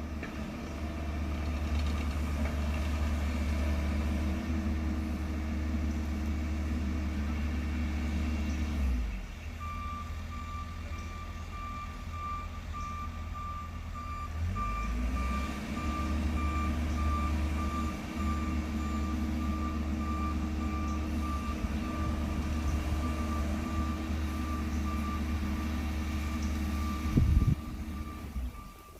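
Heavy road-construction machinery with its diesel engine running, easing off about nine seconds in and picking up again a few seconds later, while a backup alarm beeps steadily from about ten seconds in as a machine reverses. A sharp bang near the end.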